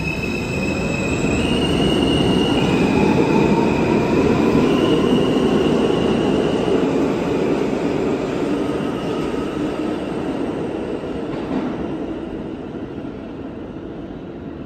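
R160 subway train pulling out and accelerating: its propulsion whines in tones that step and glide upward over the rumble of steel wheels on the rails. The rumble is loudest a few seconds in, then fades steadily as the last cars leave the station.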